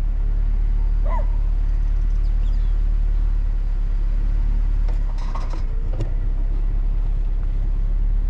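Steady low rumble of a car on the move, with a short rattle about five seconds in.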